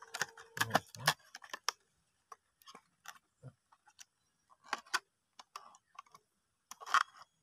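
Fishing-lure packaging being handled and opened: irregular crinkles of plastic wrap and clicks and taps of a cardboard and plastic lure box, busiest in the first second and again near the end.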